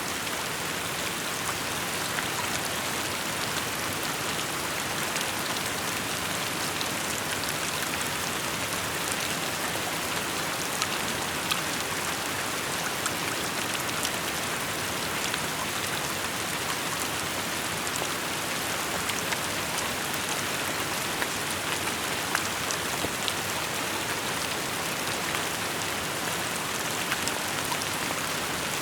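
Steady rainfall: an even hiss of rain with many single drops ticking and splatting through it.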